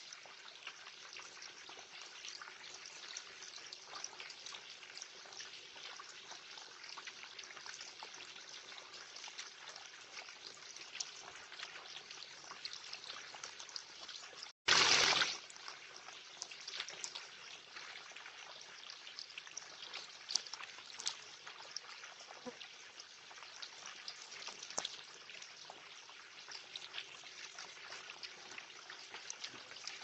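Garden water feature trickling steadily into a small pool, with scattered small splashes and drips; in the second half a sparrow is bathing in the shallow water. About halfway through, the sound drops out for an instant and a brief loud burst of noise follows.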